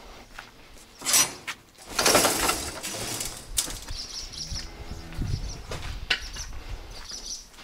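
A plastic tarp rustling and flapping as it is pushed aside, loudest about one second in and again from two to three seconds in, followed by softer scuffs and knocks.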